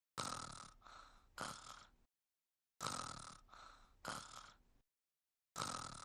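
Cartoon character's voiced snoring. Each snore comes in three breathy pulses lasting about two seconds, followed by dead silence, and the same snore repeats about every three seconds: twice in full, with a third starting near the end.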